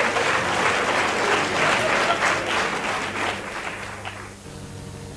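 Audience applauding, the clapping dying away about four seconds in; a faint steady hum of several tones starts just after.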